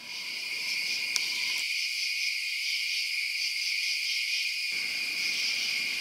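Crickets chirping steadily at night in a continuous high-pitched trill.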